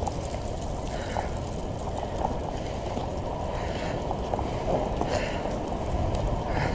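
Steady rushing roar of wind and wildfire buffeting a body camera's microphone, with scattered small crackles and clicks.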